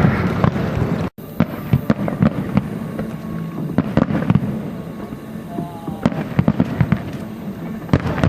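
Aerial fireworks bursting: a dense run of sharp bangs and crackles over a steady rumble. The sound cuts out for an instant about a second in.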